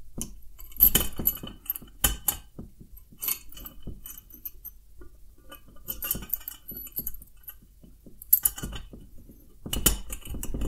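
Chrome draft-beer tower and its fittings being handled: irregular light metallic clinks, taps and rattles, with the sharpest clinks about a second in, at two seconds, and a cluster near the end.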